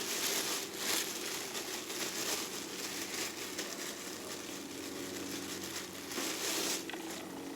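Rustling and crinkling of small items being handled and rummaged through, with light clicks, louder near the start and again about six seconds in.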